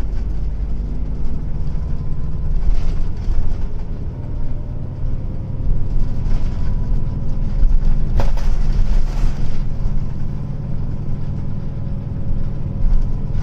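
Hino Blue Ribbon long-body bus's diesel engine running, heard from inside the cabin: a steady low rumble with a faint high whine over it, and a few brief hissing rushes. The engine note is slightly unlike an ordinary Blue Ribbon's, though the air conditioning is off.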